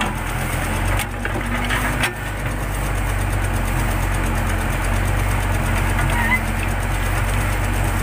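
Backhoe loader's diesel engine running steadily while the backhoe digs a trench, with two short knocks about one and two seconds in.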